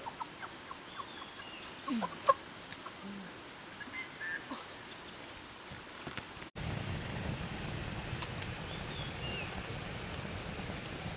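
Wood campfire burning and crackling, heard close up from about halfway through as a steady rushing noise with many small pops. Before that, a quieter open-air background with scattered ticks and a few short bird-like calls.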